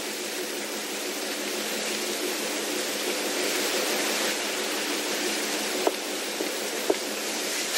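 Steady rushing of wind and rain on a ship's open deck, with a faint low hum beneath it and a couple of small knocks near the end.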